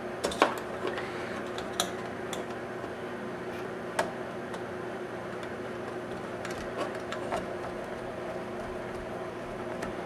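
A screwdriver turning small screws into a mini PC's chassis: scattered light clicks and taps of the driver tip, screw and metal tabs, the sharpest about half a second in, over a steady low hum.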